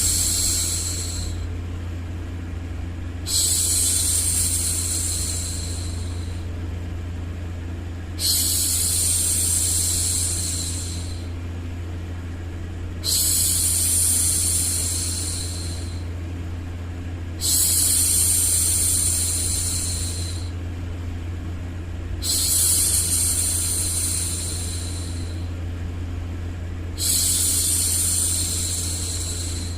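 A woman's voice making long, soothing 'shhh' shushes for a baby, each lasting about two to three seconds and repeating roughly every five seconds. Under them runs a steady low white-noise hum.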